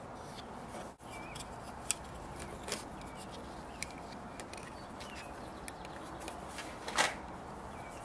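Plastic doorbell button being handled and pressed into place against a wooden door frame: a few faint clicks and taps, with a louder tap about seven seconds in, over a steady background hiss.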